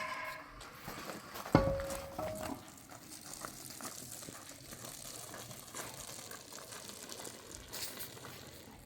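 A metal dish or pot knocked once, giving a sharp clank with a short ring about a second and a half in, followed by faint rustling and crinkling.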